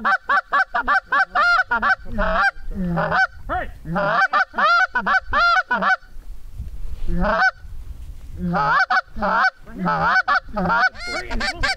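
Canada goose honks and clucks in rapid runs of several notes a second, loud and close, each note bending up and down in pitch, coming in bursts with brief pauses between them.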